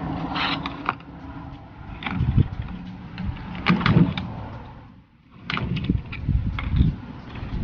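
Handling noise close to a vest-mounted camera's microphone: irregular knocks, clicks, rustles and low bumps as gear is moved about.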